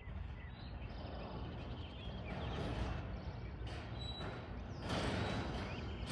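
LiftMaster 81600 garage door opener running, raising a 16x7 Amarr Hillcrest 1000 sectional garage door: a steady motor-and-door rumble that grows a little louder about five seconds in, with a few faint high chirps.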